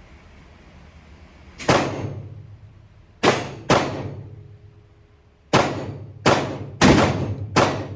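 Seven gunshots from a semi-automatic firearm, each with a short echoing tail: a single shot, then a quick pair, then four in faster succession near the end.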